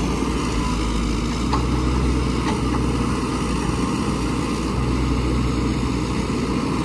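Diesel engine of heavy earthmoving machinery running steadily with a low rumble.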